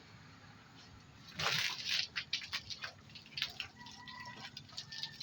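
Water splashing during a motorcycle wash: a sudden gush about a second and a half in, then irregular splashing and dripping.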